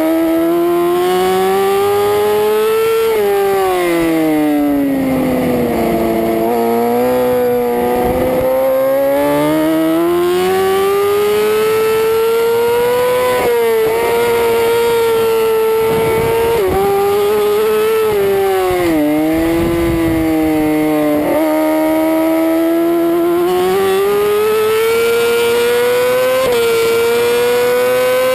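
Racing superbike engine heard from onboard the bike, its revs climbing steadily in each gear and dropping sharply at gear changes and on braking into corners, several times over, with patches of rushing noise.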